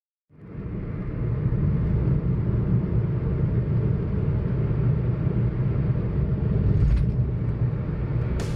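Steady low rumble of a car driving on a highway, road and engine noise heard from inside the cabin, fading in over the first second.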